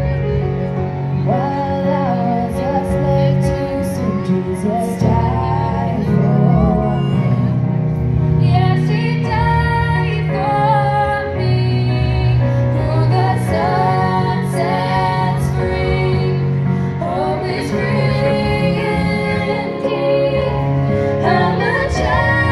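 Two young girls singing a slow song together into microphones, amplified over a PA, over steady instrumental accompaniment.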